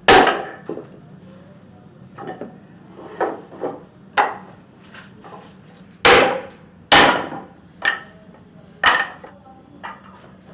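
A hammer striking wood at an irregular pace: four hard blows with short ringing, and lighter taps in between.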